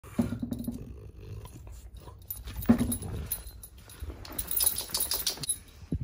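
A bulldog making short, low vocal sounds close up while being petted, once near the start and again about two and a half seconds later, amid handling noise.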